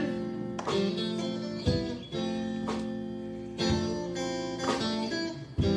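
Guitar strumming sustained chords about once a second as the accompaniment to a gospel song, in a gap between sung lines.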